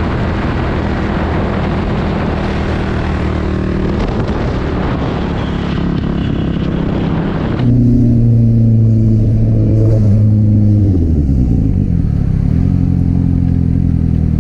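Motorcycle engine running at steady speed under heavy wind rush. About eight seconds in the wind noise stops suddenly, leaving a clear engine note that drops in pitch as the bike slows toward idle, with a quick rev blip near the end.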